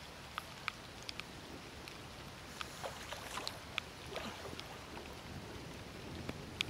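Irregular light ticks of raindrops striking the camera over a steady low wind rumble. Water splashes from a hooked fish thrashing at the surface come a few seconds in.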